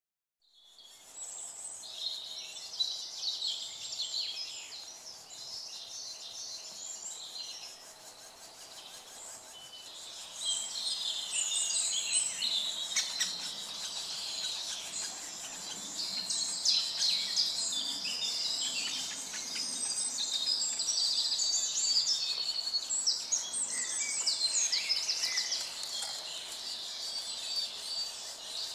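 Middle spotted woodpecker nestlings begging from the nest hole in the tree: a dense, continuous high-pitched chattering that gets louder from about ten seconds in.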